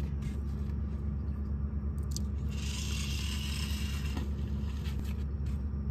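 Casting a catfish rig with a rod and reel: a click, then line hissing off the reel spool for about a second and a half. A steady low motor hum runs underneath.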